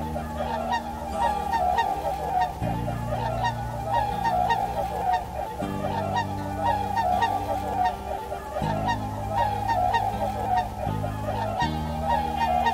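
A flock of swans and geese calling together, a steady din of many short overlapping honks. Under it, soft background music holds low chords that change every few seconds.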